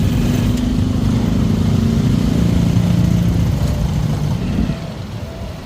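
Motorcycle engine of a Philippine tricycle running while riding in town traffic, a steady low drone that eases and grows quieter about four and a half seconds in.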